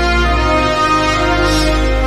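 Wind band music: the full ensemble holding sustained chords, moving to a new chord just after the start.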